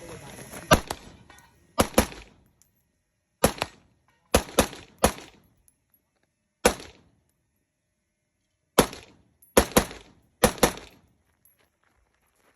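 Rifle shots from a compensated AR-15 in .223 Remington during a timed IPSC course of fire: about a dozen sharp reports, some single and some fired as quick doubles, with pauses of one to two seconds between groups.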